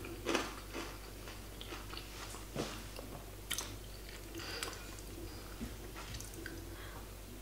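Chewing a mouthful of crisp fried sweet potato in a sesame and tapioca-flour coating, with a few crunches spread through the chewing.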